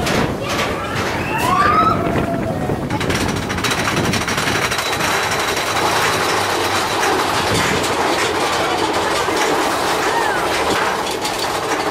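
Big Thunder Mountain Railroad mine-train roller coaster climbing its chain lift hill: a steady rattling clatter of the lift chain and wheels on track that takes over about three seconds in. Riders whoop and shout at the start.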